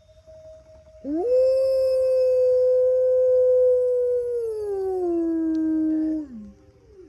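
Wolf howling: one long howl begins about a second in, sweeps up and holds steady, then steps down in pitch twice and falls away. Fainter howls of other wolves answering from far off are heard before and after it.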